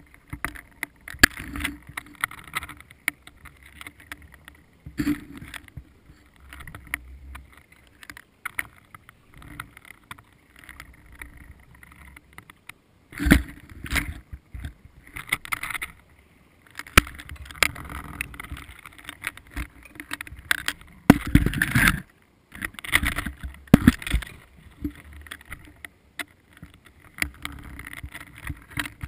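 Underwater sound heard through a camera housing: irregular sharp clicks and knocks with several bursts of rushing, scraping water noise, the loudest about two-thirds of the way through, as the bait pole and camera are handled near the seabed.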